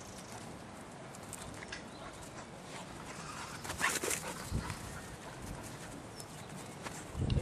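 A spaniel searching nose-down, sniffing and stepping about on grass, with a short louder burst about four seconds in.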